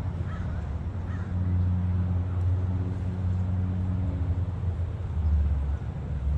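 Low engine hum that shifts up and down in pitch a few times.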